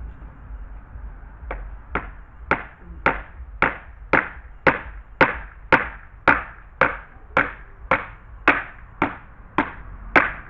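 Hammer blows striking at an even pace, about two a second, beginning about a second and a half in, as a fastener is driven into the gate during its repair.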